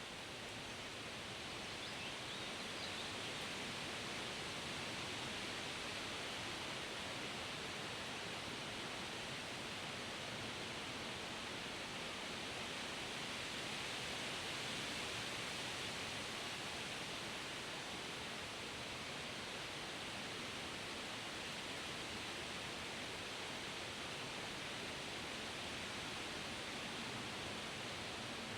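Wind moving through forest leaves: a steady, even rustling hiss that swells slightly in the first few seconds.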